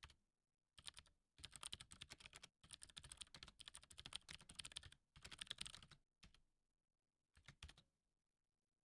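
Faint typing on a computer keyboard: quick runs of keystrokes with short pauses, then a last brief burst of keys near the end.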